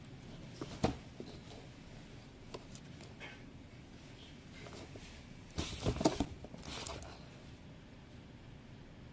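Hands handling a plastic protein-powder tub: a single sharp tap about a second in, then a short run of rubbing and knocking about six seconds in as the tub is turned.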